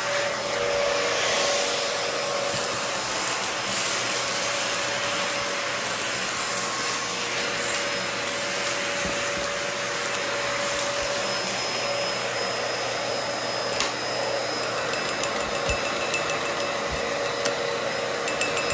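Dyson DC14 upright vacuum cleaner running steadily on a bare concrete floor, its motor and brushroll making a continuous whir with a few light ticks scattered through it, one sharper tick about two-thirds of the way in.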